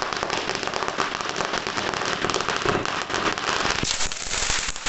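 A firework crackling: a dense, unbroken stream of rapid small pops and hiss that fades out just after the end.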